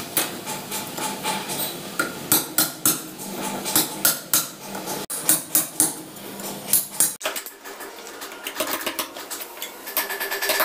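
Hammer striking a steel cold chisel in a run of sharp, ringing metallic blows, about two to three a second, chipping out concrete to expose a leaking buried water pipe. The blows turn lighter and quicker about seven seconds in.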